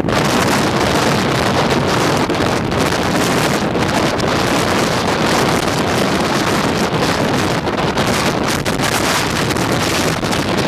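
Hurricane Sandy's storm wind blasting across the microphone: a loud, continuous roar of wind noise that starts abruptly.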